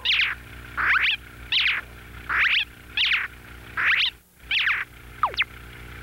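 Cartoon sound effect of a squeegee squeaking on window glass in back-and-forth strokes: a run of about eight short squeaks, often in pairs, with a thinner gliding squeak near the end, over a steady low hum.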